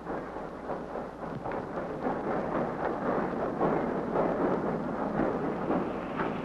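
A dense rumbling, crackling clatter that grows louder over the first few seconds and then holds steady.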